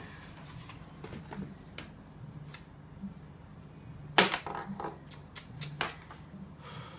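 Scattered sharp clicks and taps on a computer keyboard and mouse, the loudest about four seconds in, over a low steady room hum.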